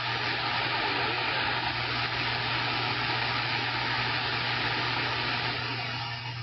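CB radio receiver giving a steady hiss of band static with a low hum in it, easing off slightly near the end.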